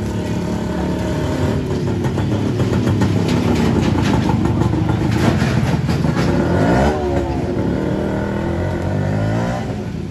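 Street traffic: motor vehicle engines running steadily, with one vehicle passing close about seven seconds in, its engine pitch sweeping up and then down.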